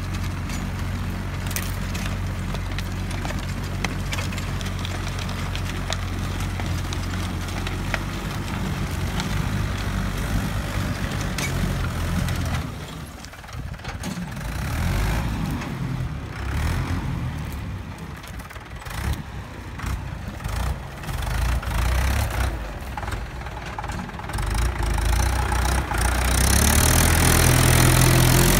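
Tractor diesel engine running steadily while it drives a rotavator through soil. The engine sound dips and wavers in the middle and grows louder near the end.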